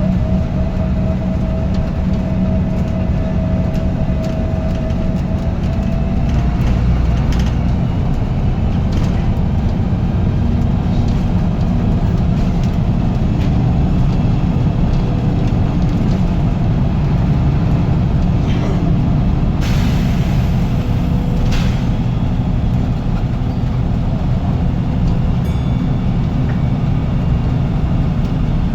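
Bus engine running on the move, with a steady whine for the first six or so seconds, taken for the turbo whistle. Two short hisses come about two-thirds of the way through.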